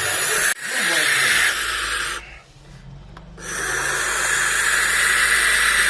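An owl hissing with a snake-like hiss. The hiss breaks off for about a second near the middle, then carries on.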